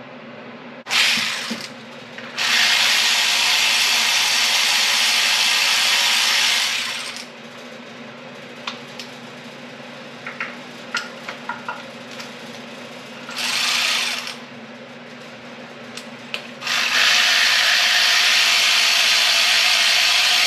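A handheld power tool run in bursts: a short one about a second in, a run of about five seconds, another short burst in the middle, and a second long run near the end. Light metal clinks and clicks come between the runs.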